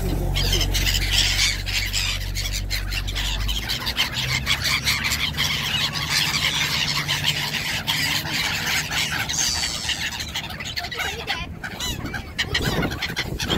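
A large flock of black-headed gulls calling, many high-pitched calls overlapping. Under them for the first four seconds or so, the diesel engine of a Tenryu Hamanako Railway TH2100-series railcar runs steadily and low, then stops being heard.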